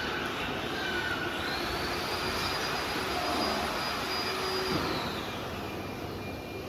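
CNC router running, with its spindle giving a high whine that rises about a second in, holds steady, then falls away near five seconds, over a steady rushing machine noise.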